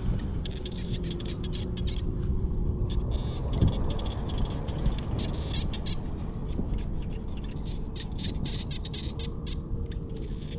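Frogs in a rice paddy calling with rapid, irregular clicking croaks, over a steady high trill that breaks off twice and a low rumble underneath.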